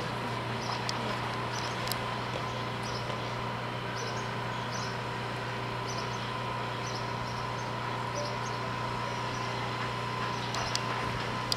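A steady mechanical hum with a constant high tone over it, and small high chirps every second or so, with a few faint clicks.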